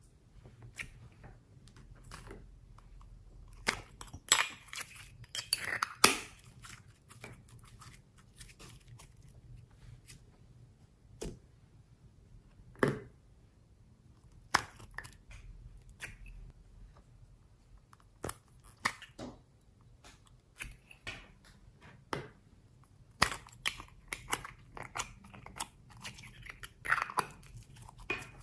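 Small plastic slime containers being handled and opened by hand: irregular sharp clicks and short crackles of the plastic shells and lids, with sticky slime sounds in between.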